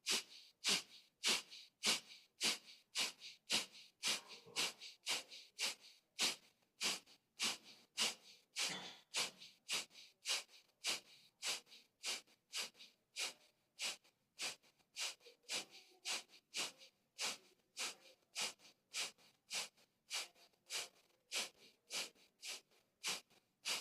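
Kapalbhati yogic breathing: a steady train of short, forceful exhalations through the nose, a sharp nasal puff a little under two times a second, with passive inhalations between.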